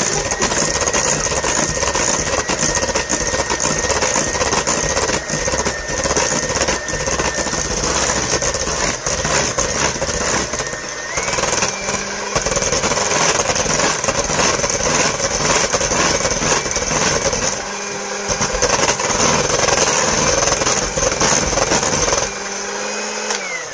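Electric hand mixer running steadily, its beaters creaming butter and sugar in a stainless steel bowl. Its whine steps up in pitch about halfway through, then slides down as the motor is switched off near the end.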